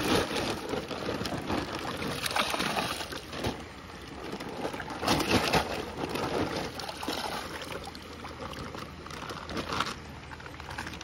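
Wet sloshing and splashing in irregular bursts as handfuls of small fish are scooped up by hand on a wet rock at the edge of shallow water.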